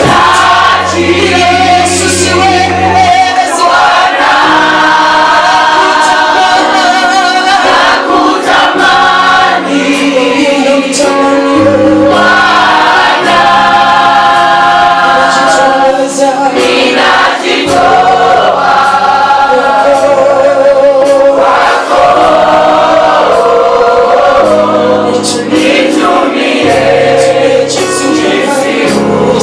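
A group of worship singers sings a gospel song together over instrumental backing, with long low bass notes that change every couple of seconds.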